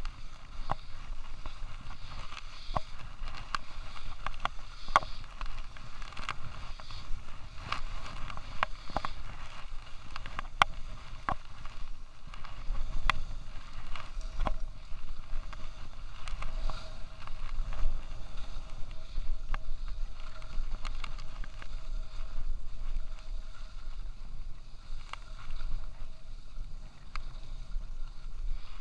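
Skis sliding and scraping over a groomed, corduroy-textured snow piste on a downhill run. Irregular sharp clicks and knocks come through over a steady hiss, with a low rumble of wind on the body-worn camera's microphone.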